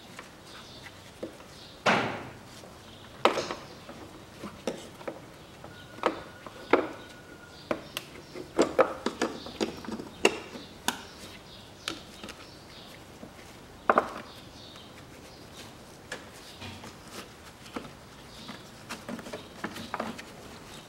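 Plastic air filter housing lid on a Ford Ranger being pressed and snapped into place by hand: irregular clicks and knocks of hard plastic, a few louder ones near the start and about fourteen seconds in.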